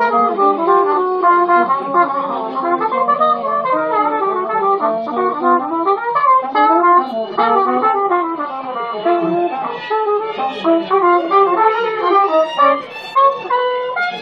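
Two muted trumpets improvising together in a jazz jam, one played through an adjustable Soulo cup mute and the other through a Soulo bucket mute, their melodic lines weaving around each other.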